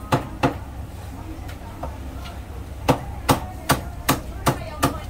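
Cleaver chopping soy sauce chicken on a thick round wooden chopping block: two sharp chops at the start, a few light taps, then six steady chops about two and a half a second from about three seconds in.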